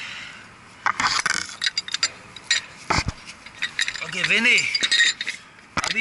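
Metal clinking and knocking as tools and steel pipe fittings are handled, a quick string of sharp clicks with a heavier knock about three seconds in. A brief pitched sound rises and falls about four seconds in.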